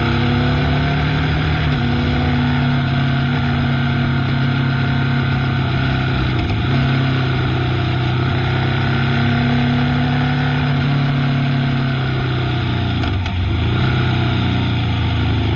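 Motorcycle engine running under way, its pitch holding steady, then shifting several times with throttle and gear changes, over steady wind and road noise.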